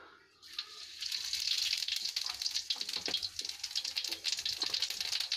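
Cumin seeds dropped into hot oil in a kadhai, sizzling and crackling as they fry. The sizzle starts about half a second in and swells within the next half second.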